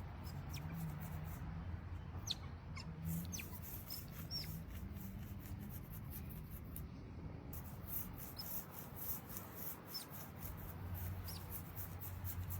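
Faint, short, high-pitched squeaks from a small animal, about ten scattered through, over a low steady hum and light crackle.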